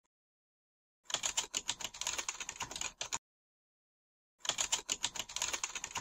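Typing sound effect: rapid keyboard key clicks in two runs of about two seconds each, the first starting about a second in and the second about four and a half seconds in, with a silent gap of about a second between.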